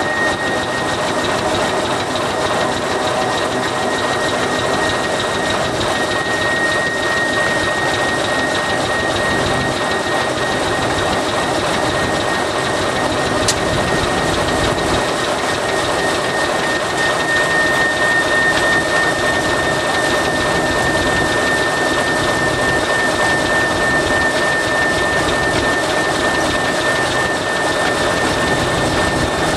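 Diesel engine of a TEM2 shunting locomotive running steadily while the locomotive is under way, with a steady high-pitched whine throughout.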